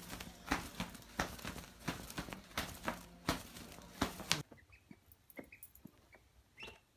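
Irregular sharp taps and clicks, two or three a second, over a steady low hum, stopping abruptly about four seconds in; after that, a few faint short high peeps of a duckling.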